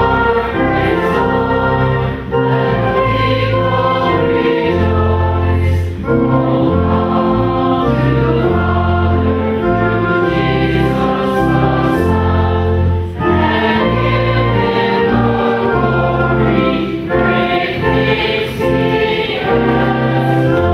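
Background choral music: a choir singing sustained chords that change every second or two.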